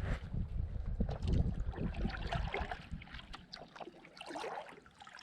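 Wind buffeting the microphone, heavy for the first three seconds or so and then easing, with water splashing and lapping and small knocks around a kayak.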